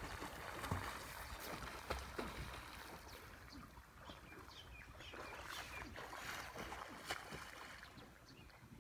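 Faint river water sounds: light splashing and lapping from a swimmer stroking across open water, with a few short bird chirps around the middle.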